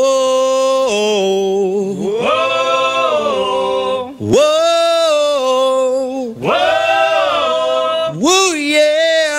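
A man singing unaccompanied in long held notes, each one swooping up at its start.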